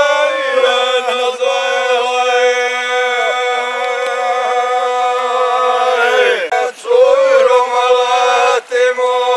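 A small group of men singing a traditional folk song together, unaccompanied, in long drawn-out held notes, pausing briefly for breath about six and a half and nearly nine seconds in.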